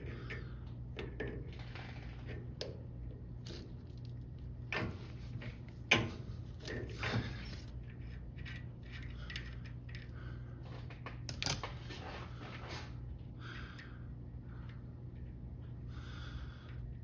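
Scattered light metallic clinks and taps of tools and parts being handled at a metal lathe, over a steady low hum; the sharpest clinks come about six seconds in and again near the middle.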